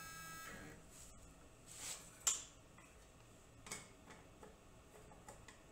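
The router table's motorized fence whines steadily as it drives back, stopping about half a second in. Then come scattered clicks and knocks as the red plastic insert ring is handled and fitted into the router plate, the loudest about two seconds in.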